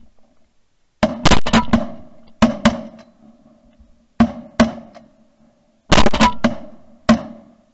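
Shotgun blasts in quick clusters: several shots close together about a second in and again around two and a half seconds, two single shots near the middle, another burst near six seconds and a last shot near the end.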